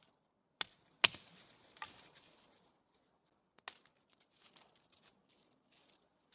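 Four sharp knocks or clicks, the loudest about a second in, with faint rustling and scraping between them.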